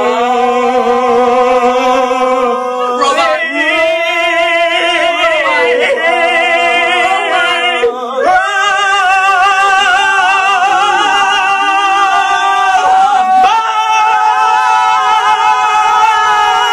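A voice singing long held notes with a wavering vibrato, moving to a new pitch every few seconds.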